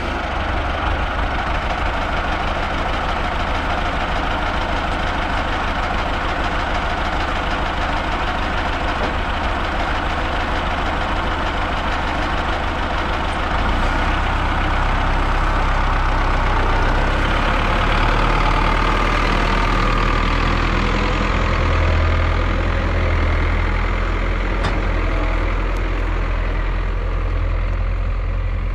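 MTZ-82 tractor's four-cylinder diesel engine running steadily just after start-up. About halfway through its note changes and grows a little louder.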